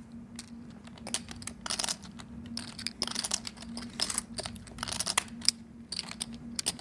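Clay poker chips clicking against each other in short, irregular clusters as a player handles and shuffles his chip stack.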